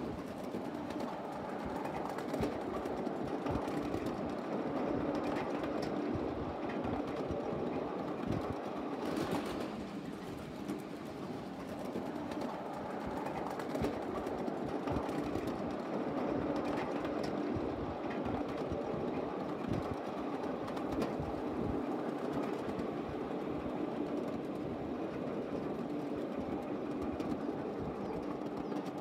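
1/8-scale ride-on miniature train rolling along the track, heard from aboard: a steady rolling rumble of small steel wheels on steel rail, with frequent irregular clicks and a faint steady hum.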